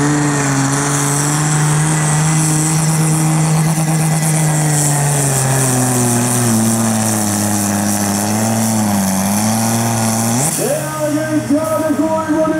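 Diesel engine of a green Deutz sport-class pulling tractor running flat out while hauling the weight-transfer sled: a loud steady drone whose pitch sags lower from about halfway as the engine labours under the building load. About ten seconds in, the note jumps up sharply and turns uneven as the pull ends.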